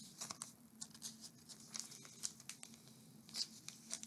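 Faint crinkling and scratchy rustles from hands handling trading cards and their foil pack wrappers, with a louder rustle about three and a half seconds in.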